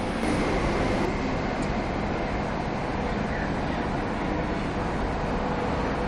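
Electric train noise at a railway station platform: a steady low rumble with a faint electrical hum.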